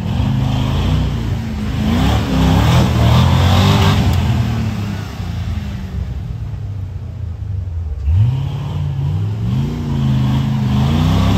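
Off-road race vehicle's engine revving hard in repeated bursts, its pitch rising and falling. It eases off for a few seconds midway, then revs up sharply again about eight seconds in.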